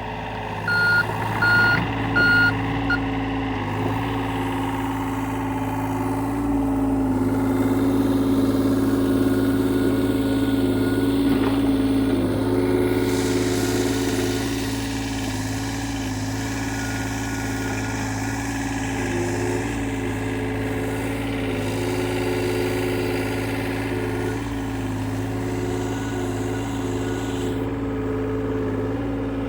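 John Deere excavator's diesel engine running steadily, pulling harder and louder for several seconds in the middle. Its travel alarm beeps about four times about a second in.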